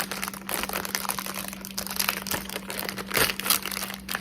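Plastic wrapping on a pack of marshmallow Peeps candy crinkling and crackling in irregular bursts as it is handled and opened.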